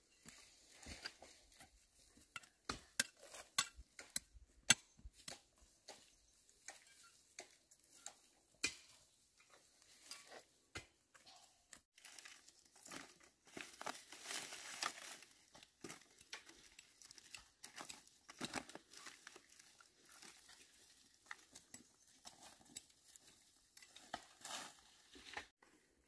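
Dry, burnt grass stalks and twigs crackling, snapping and rustling as they are pulled up and trodden on, in many irregular sharp clicks, with a denser spell of rustling about halfway through.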